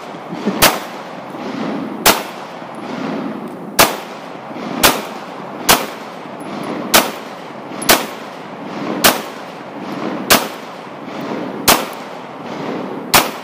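An FN 509 Tactical 9mm pistol fired in slow single shots, about eleven of them at a steady pace of roughly one shot every second or so. Each report is sharp.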